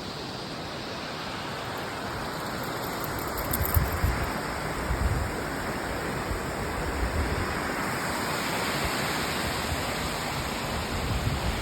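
Ocean surf washing with a steady rush, with low rumbling thumps from about four seconds in.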